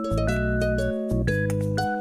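Instrumental background music: a gentle plucked melody whose notes change about every half second over a held bass line.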